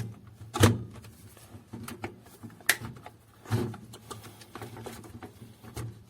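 Irregular sharp plastic clicks and knocks as a laser printer's developer unit cover is worked into place, with a screwdriver holding back the shutter, the loudest at the start and just over half a second in.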